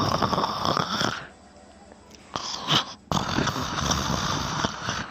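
A person snoring: two long snores of about two seconds each, with a brief, shorter breath sound between them.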